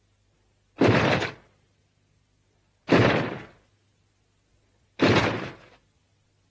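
Hedorah monster sound effect: a sudden, noisy blast with no clear pitch, repeated three times about two seconds apart, each dying away within a second.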